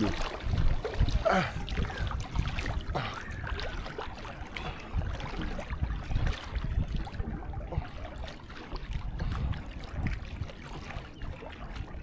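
Seawater sloshing and lapping around a camera held at the surface by a swimmer, with a low, uneven rumble of water moving against the microphone.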